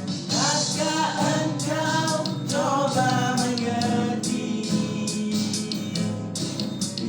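Live band music: a vocalist singing over a steady beat with instrumental backing. The singing stops about four and a half seconds in while the accompaniment carries on.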